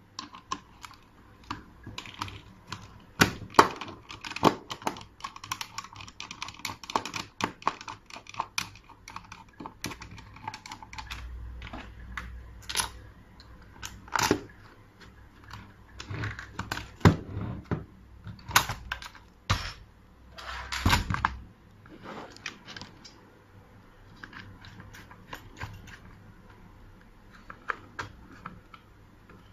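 Irregular clicks and knocks of a mechanical push-button door lock's parts being handled and fitted to a door during installation, with a few louder knocks and a brief low rumble near the middle.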